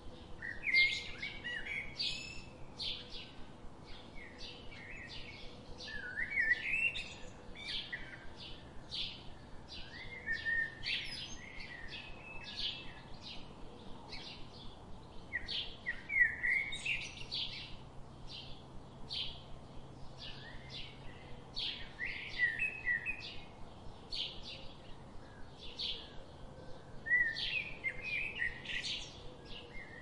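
Small songbirds chirping: a steady stream of short high chirps, several a second, with bursts of lower slurred notes every few seconds.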